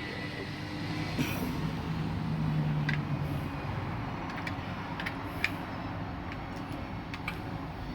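Steady background hum with a few light clicks and taps from handling food and utensils in a kitchen.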